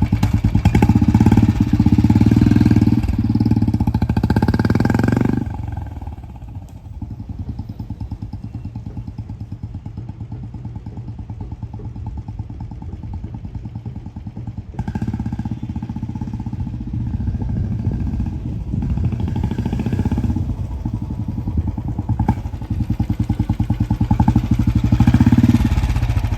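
Royal Enfield Bullet's single-cylinder exhaust through a two-jali HKK Indori aftermarket silencer, ridden off. It is loud for the first five seconds, fades to a distant run for about nine seconds, then grows loud again as the bike comes back and passes close near the end.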